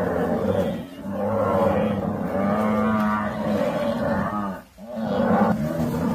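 Large animals calling loudly with deep, drawn-out, wavering roars or bellows, in long stretches broken by brief pauses about a second in and near the end.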